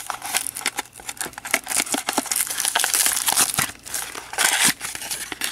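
Clear plastic shrink-wrap crinkling and tearing as it is worked off a cardboard trading-card mini box by hand, a dense run of crackles that is loudest midway.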